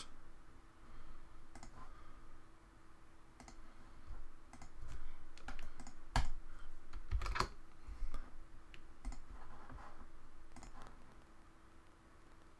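Irregular clicks and taps of a computer keyboard and mouse during work at a computer, with two heavier knocks around the middle, over a faint steady hum.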